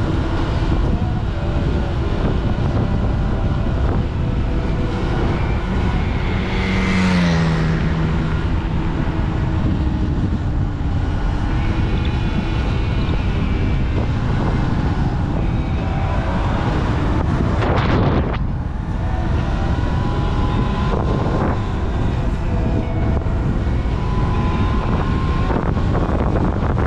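Wind rushing over a moving action camera's microphone with steady road rumble while riding along a road. About seven seconds in, a passing vehicle's sound drops in pitch, and a short gust or knock comes near the middle.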